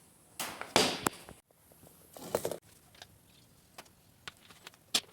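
Short bursts of rustling and several sharp clicks and knocks from handling things at a workbench, broken off abruptly twice.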